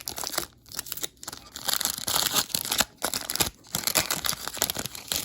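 Foil trading-card pack wrapper being torn open and crinkled, in irregular crackling bursts.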